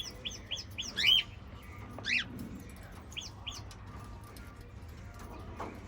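Small pet parrots chirping: a quick run of short chirps, a louder call about a second in and another about two seconds in, then two more short chirps, after which it goes quieter.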